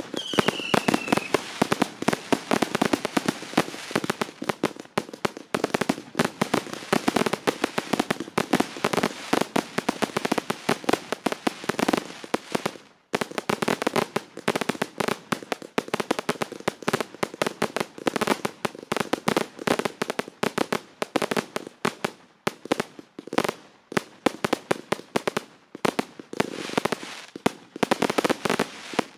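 Aerial fireworks bursting in rapid succession: a dense, continuous run of crackling pops and bangs, with a short falling whistle right at the start and a brief lull about 13 seconds in.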